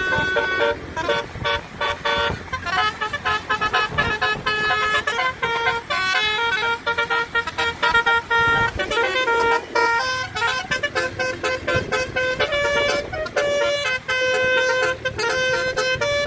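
Indonesian tour bus's 'basuri' telolet musical horn playing a melody: a quick run of horn notes stepping up and down in pitch.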